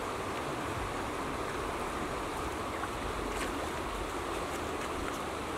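Steady rush of a shallow river flowing over rocks, with a couple of faint clicks around the middle.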